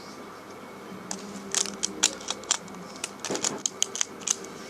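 Plastic Beyblade toy parts being handled, making an irregular run of small, sharp clicks and clacks that starts about a second in.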